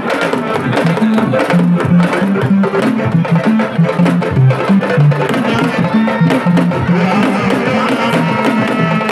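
Lively music driven by fast, dense drumming, with a low line stepping between notes underneath.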